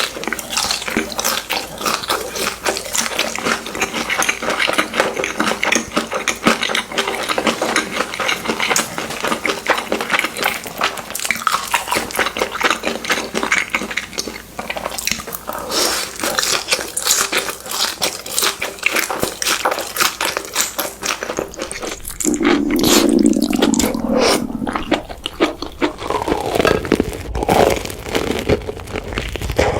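Close-miked food ASMR eating sounds: dense crunching and crackling with biting and chewing. About 22 seconds in, a louder, fuller stretch with some gliding tones joins them.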